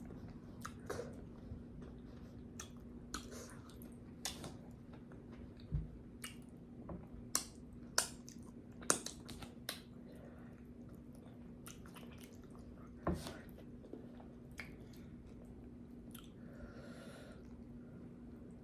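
Close-miked chewing and mouth smacking, with irregular sharp wet clicks spread throughout. A faint steady hum sits underneath.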